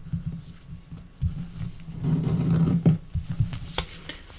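Origami paper handled and creased by hand on a tabletop: irregular soft rustling and crinkling, with dull knocks of hands and paper against the table. The handling grows louder about two seconds in.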